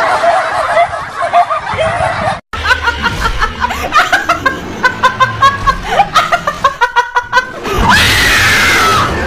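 A wavering high-pitched cry, then after a brief cut a woman laughing in quick bursts, and a loud scream near the end.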